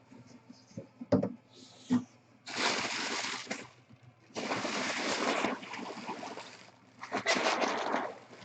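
Bubble wrap and plastic packing being handled and pulled open, rustling and crinkling in three bursts of about a second each, with two sharp knocks about one and two seconds in.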